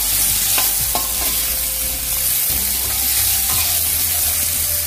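Potato cubes sizzling in hot oil in a metal kadai while a steel spoon stirs them, scraping and knocking against the pan several times.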